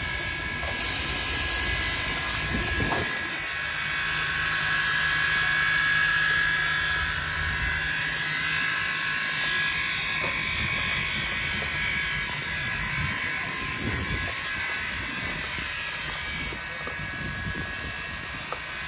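A 1953 steam locomotive standing with steam up, hissing steadily, with a high whine running through the hiss.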